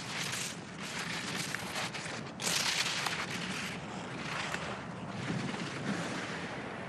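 Alpine racing skis carving giant slalom turns on snow, the edges scraping in a series of hissing surges about a second apart, the loudest starting about two and a half seconds in.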